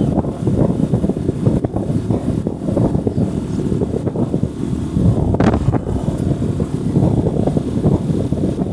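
Wind buffeting the microphone on a moving motorcycle, a steady low rumbling rush over the ride noise, with a short sharper gust about five seconds in.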